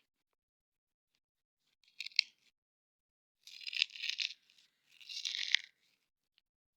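Plastic snack wrapper being torn open and crinkled: a short rip about two seconds in, then two longer tearing rustles.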